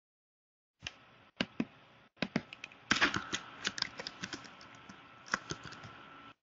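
Irregular clicking of typing on a computer keyboard, picked up through an online meeting microphone. The keystrokes come thicker from about three seconds in, and the sound cuts off abruptly near the end.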